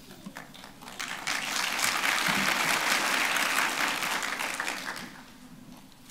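Congregation applauding. It starts about a second in and dies away after about four seconds.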